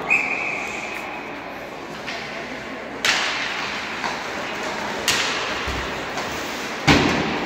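Ice hockey play in an echoing rink: sharp knocks of pucks, sticks and bodies against the boards, four in all over a murmur of voices, the loudest near the end.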